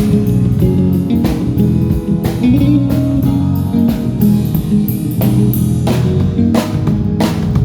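A live band playing through a PA: guitar and bass over a drum kit with regular drum hits, during a sound check.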